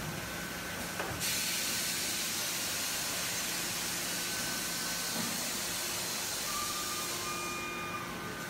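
Melamine lamination line machinery running: a click about a second in, then a long loud hiss that fades near the end, over a steady machine hum.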